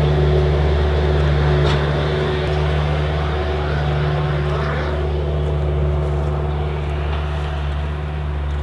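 A motor running steadily, a constant low hum with a little higher hiss over it, holding one pitch throughout.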